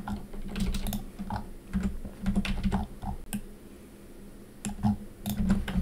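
Computer keyboard keystrokes: irregular, short clicks of keys pressed as shortcuts, some in quick pairs.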